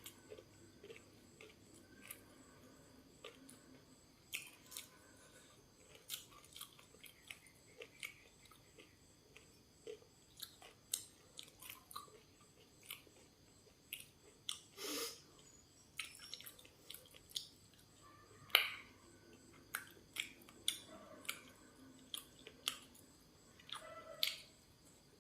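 Close-up chewing and biting of crisp food, with irregular crunches throughout and a louder crunch about two thirds of the way in.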